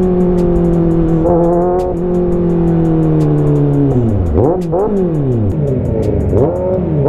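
Motorcycle engine under way, its note holding steady and slowly falling, then rising and falling quickly a few times from about four seconds in as the revs change. Background music with a steady beat plays along.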